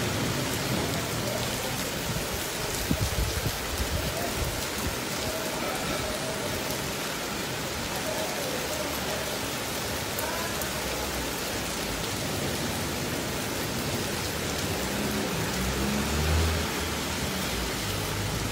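Heavy rain pelting a flooded street, a dense, steady hiss of drops striking standing water. A low rumble swells briefly near the end.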